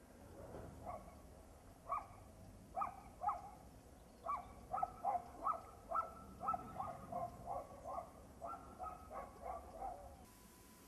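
Repeated short animal calls: a few spaced ones at first, then a fast series of about three a second.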